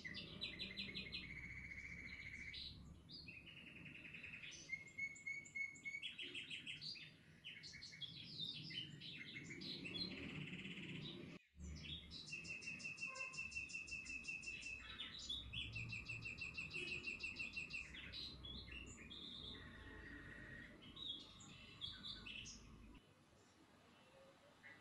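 Songbirds singing: a fast run of overlapping trills and chirps that breaks off sharply about halfway and then resumes.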